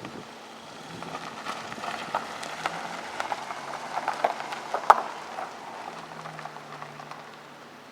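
Car engine running quietly under a scatter of sharp crackling ticks that build up in the middle, loudest about five seconds in, and thin out toward the end.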